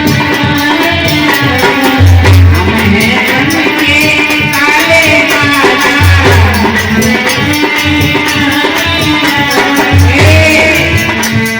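Folk music backing for a Hindi Bhim geet: a steady rattling shaker rhythm under a melody line, with a deep bass note about every four seconds.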